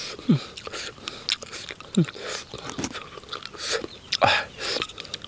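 A person eating close to the microphone: wet chewing and biting with many sharp mouth clicks and smacks, and a few brief falling pitched sounds among them.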